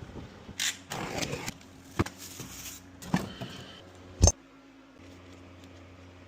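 Hand and tool handling noises while removing a refrigerator's compressor: a few knocks and scrapes, with one sharp knock about four seconds in, over a steady low hum.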